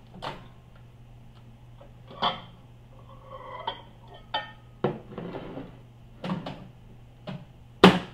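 Microwave oven door unlatched and opened, then a ceramic bowl clinking and scraping on the glass turntable: a string of short knocks and clicks. Near the end the door is pushed shut with the loudest, sharpest knock.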